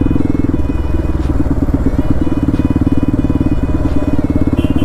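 Bajaj Pulsar NS200's single-cylinder engine running steadily while the motorcycle is ridden along.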